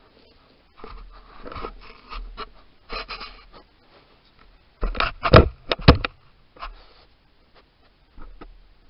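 European badger rubbing its fur and snout against a trail camera at close range, giving irregular scraping and rustling, with a cluster of loud knocks about five seconds in as it bumps the camera.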